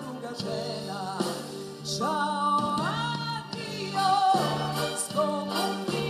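A woman singing a song with band accompaniment: long held notes with wide vibrato and a few upward slides in pitch over a steady bass line, heard through a television's speaker.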